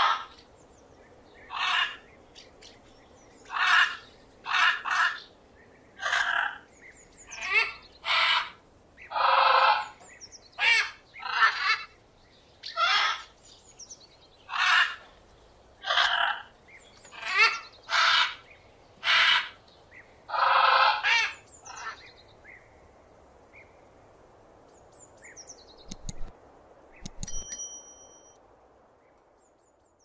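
Parrot squawking: a run of harsh calls, each under a second long, roughly one a second, that stops about two-thirds of the way in. After that only faint background remains, with a few soft clicks and a short high chirp near the end.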